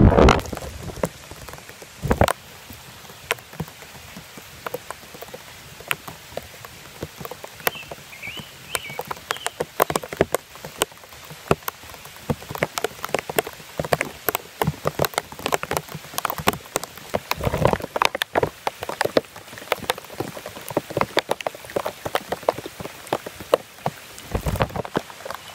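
Heavy downpour on a flooded gravel driveway: steady rain with many close, sharp drop splashes, and rainwater running down a shallow channel. A few low thumps break in, near 2 s, 18 s and at the end.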